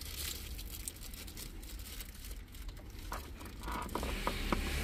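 Faint clicks and light rustling of wires and plastic connectors on a car stereo wiring harness being handled, over a low steady rumble.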